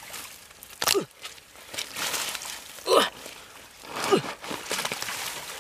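Hands squelching and splashing in a shallow muddy puddle while groping for fish, with three short wet slurps that drop quickly in pitch: about a second in, at three seconds, and just after four seconds.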